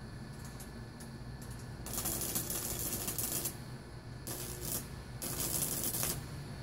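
High-voltage arcing from a home-built, transformer-powered bug zapper grid: three bursts of crackling sparks, the first about two seconds in and lasting about a second and a half, over a steady low hum.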